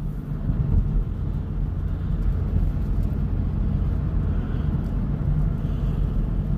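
Steady engine and road rumble heard from inside a moving car's cabin.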